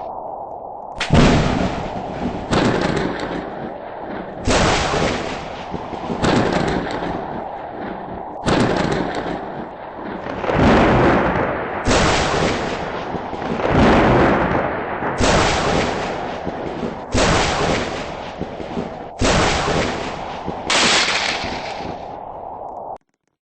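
Thunder: a rapid series of loud cracks, about one every two seconds, each rumbling away; it cuts off suddenly near the end.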